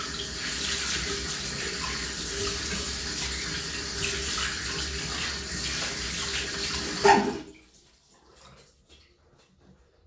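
Hands being washed under a running tap, the water hissing steadily into the sink. About seven seconds in there is a sharp clunk and the water stops suddenly, leaving only faint scattered ticks.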